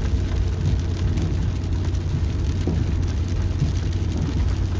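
Steady low rumble of a truck driving on a wet road, heard from inside the cab, with rain striking the windshield.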